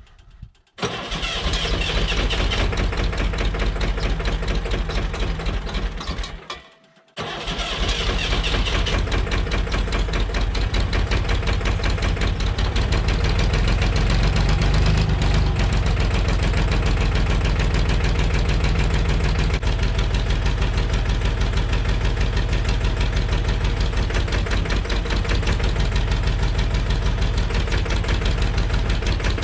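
Massey Ferguson backhoe engine starting: a high starter whine over cranking, a short dropout about six and a half seconds in, a second start, and then the engine runs on at a steady, evenly pulsing idle.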